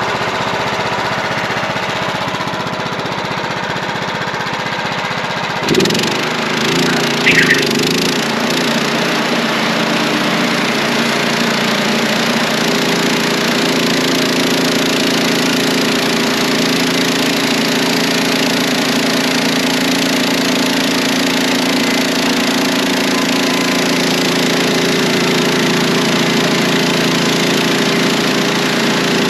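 Wood-Mizer portable band sawmill's engine running; about six seconds in it shifts to a higher, steady pitch with a brief squeal, then runs steadily under load as the band blade saws a board off a pine log.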